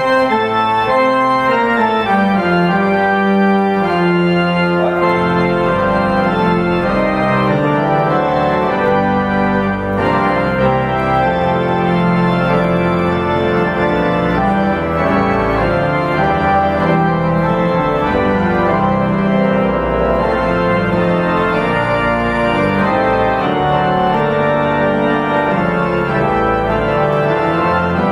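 Church organ playing loud, sustained chords over a bass line, with the notes changing every second or so.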